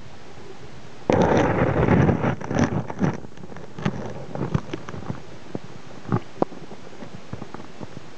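Water disturbance picked up by a submerged camera: a sudden loud rush of noise about a second in that lasts about two seconds, then scattered knocks and clicks.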